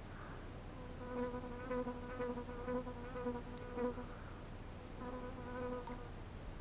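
A flying insect buzzing close to the microphone at a steady pitch, in two spells: about three seconds starting a second in, then about a second more near the end.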